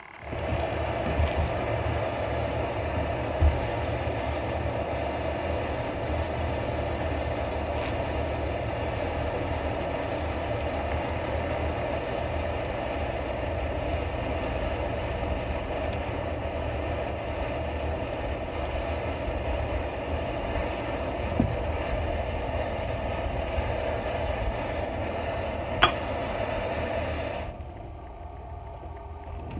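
Camp stove burner running steadily under a pot of water. It starts abruptly, a few light clinks sound over it, and it cuts off shortly before the end.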